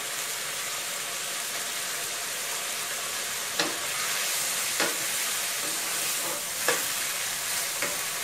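Fish balls and bamboo shoot strips sizzling in a hot wok of sauce while being stirred and tossed with a wooden spatula: a steady frying hiss, with three knocks of the spatula against the pan.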